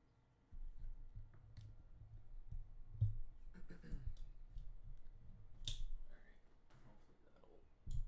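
Handling noise: low bumps and rustling with a few sharp clicks, the loudest click about three quarters of the way through and another at the very end.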